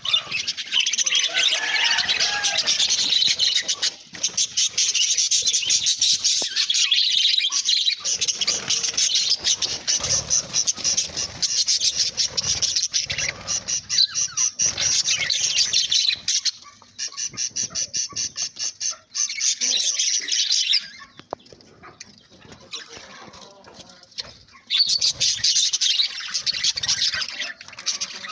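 Budgerigar chattering and warbling in rapid, high-pitched chirps, with a quieter pause about three-quarters of the way through before the chatter resumes.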